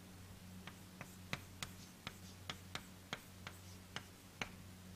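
Handwriting during a lecture derivation: about a dozen faint, irregular taps and clicks as figures are written, over a low steady electrical hum.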